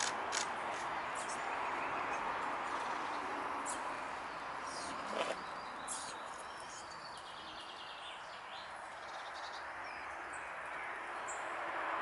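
Small woodland songbirds chirping and calling around seed feeders: short high chirps scattered through, with a brief run of quick repeated notes past the middle, over a steady outdoor background hiss.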